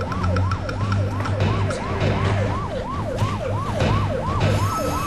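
Police siren in a fast yelp, its pitch rising and dropping about three times a second, with a low pulsing beat underneath.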